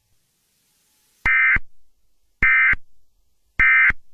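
EAS SAME end-of-message data bursts: three short buzzy warbling-tone bursts, each about a third of a second long and a little over a second apart, signalling the end of the US alert.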